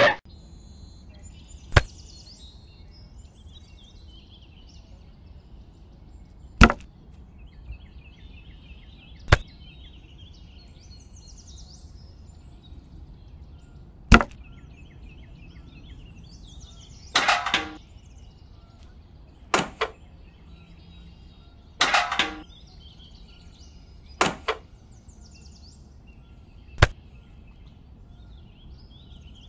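Sharp clicks and knocks, about ten spread out with pauses between, a couple of them longer and rattly, as the small model bridge pieces are handled and set down.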